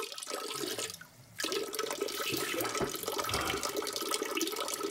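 Tap running into a bathroom sink. The flow drops away briefly about a second in, then runs on steadily.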